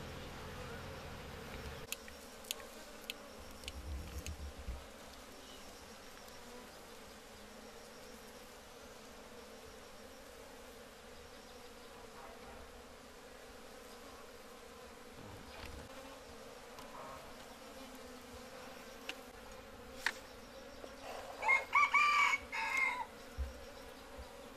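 Honeybees buzzing steadily around an opened hive with their combs being cut out. A few sharp clicks sound a few seconds in, and a rooster crows loudly near the end.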